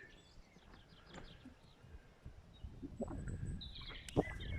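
Faint bird chirps and calls, a few near the start and a livelier run of them near the end, with a single sharp click about four seconds in.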